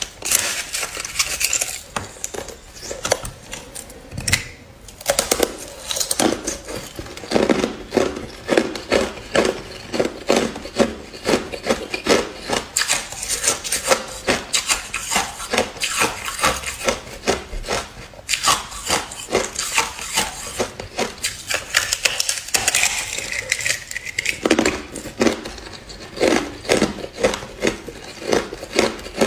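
Thin, hollow clear ice being bitten and chewed, giving rapid crisp crunches and crackles, several a second, with a brief lull about four seconds in.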